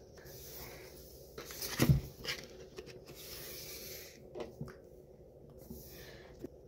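Handling noises close to the microphone: a hand rubbing and brushing near the phone, with a single thump about two seconds in and a few light clicks.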